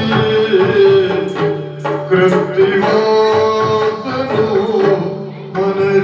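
Yakshagana music: a sung line over a steady held drone, with sharp drum strokes.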